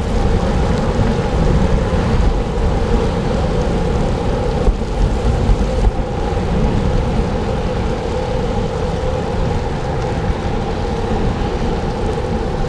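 Wind rumbling on the microphone of a bicycle being ridden on a wet road, with steady tyre and road noise.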